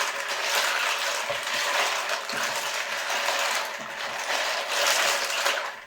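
A bowlful of loose plastic keyboard keycaps rattling and clattering together as they are rinsed with water.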